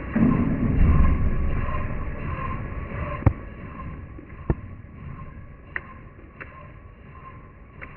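Milling machine running with a flycutter, a steady machine drone with a faint pulsing tone, louder in the first couple of seconds, and a few sharp clicks.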